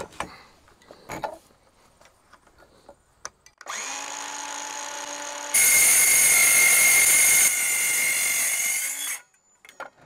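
DeWalt DCS373 cordless metal-cutting circular saw spinning up about three and a half seconds in, then cutting through the sheet-metal skin of a refrigerator, loudest for the first two seconds of the cut, for about three and a half seconds before it stops. A few light clicks of handling come before it.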